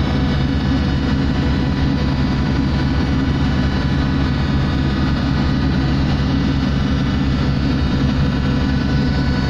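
Ship's engines and machinery running, a steady drone with several steady tones and no change in level.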